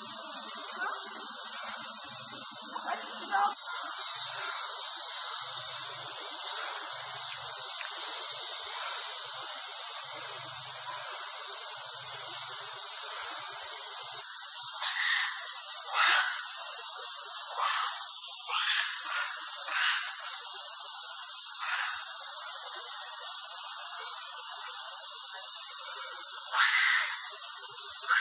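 Loud, steady chorus of summer cicadas, a continuous high shrill hiss. From about halfway a series of short separate calls breaks in over it.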